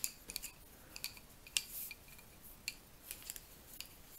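Wooden double-pointed knitting needles clicking and tapping against each other while stitches are knitted in the round: a string of light, irregularly spaced clicks.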